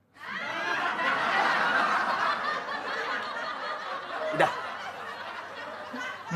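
Audience laughter from many people bursts in all at once and slowly dies down. A single sharp click stands out about four and a half seconds in.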